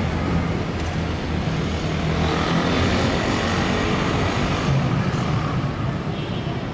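Steady traffic noise: a constant low rumble of vehicles with a wide hiss of road noise.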